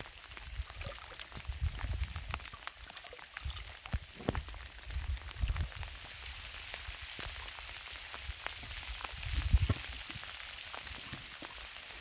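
Light rain pattering in scattered drops, turning into a steadier hiss about halfway through, with a few low rumbles on the microphone.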